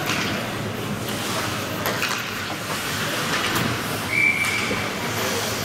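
Ice hockey rink sound during play: skate blades scraping with sharp knocks of sticks and puck. About four seconds in, a referee's whistle blows one steady blast of about a second, stopping play.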